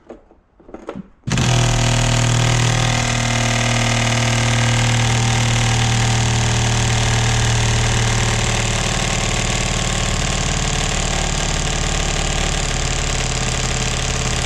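Half-inch stubby cordless impact wrench with a T50 Torx bit hammering on the steering wheel's retaining bolt. It starts suddenly about a second in and runs steadily without breaking the bolt loose.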